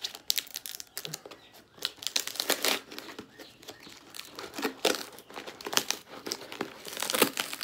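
Hands tearing and crumpling a heavily taped cardboard box open, an irregular run of crackles and rips of tape and cardboard.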